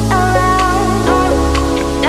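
Electronic background music: a gliding synth melody over a steady bass, with a regular beat.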